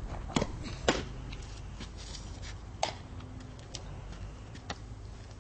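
A fastpitch softball pitch smacking into a catcher's mitt, a sharp pop about a second in, then a few lighter clicks over a steady low rumble.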